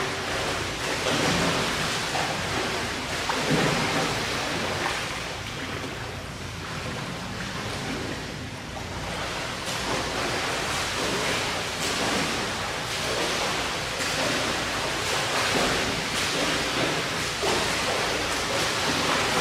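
Indoor swimming pool water: a steady rushing hiss of water lapping and splashing as a swimmer swims laps.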